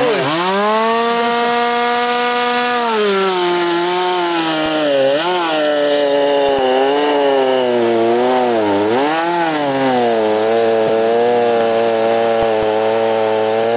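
A Stihl MS170 two-stroke gas chainsaw and a Dewalt 60V battery chainsaw are both running at full throttle, cutting through an ash log side by side. The running note revs up, holds steady, then drops about three seconds in as the saws bite into the wood. It wavers up and down under load for several seconds and settles near the end.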